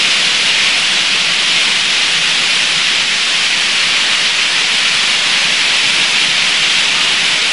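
Steady, fairly loud hiss of an old analogue recording, with no voice.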